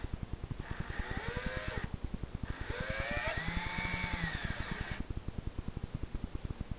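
Cordless drill driving wood screws into a wooden door frame to mount a gate clasp: two runs, a short one of about a second and a longer one of about two and a half seconds, the motor whine rising and then falling in pitch each time. A rapid low pulsing hum sits underneath.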